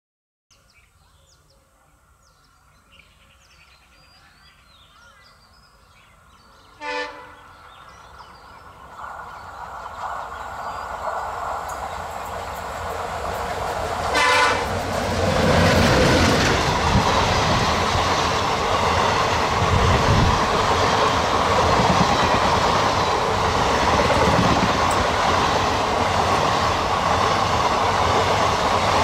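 ALCO WDM-3D diesel locomotive approaching with its engine running, sounding two short horn blasts about seven seconds apart. Then the engine and train get loud as they pass close, with the coaches' wheels clattering steadily over the rail joints.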